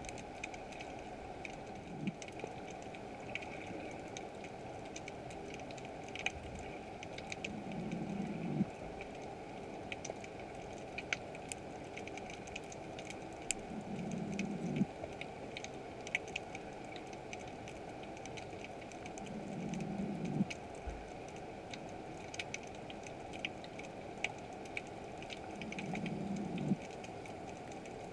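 Underwater ambience over a rocky seabed: a steady scatter of sharp crackling clicks, typical of snapping shrimp. A low hum swells for about a second and cuts off sharply, roughly every six seconds.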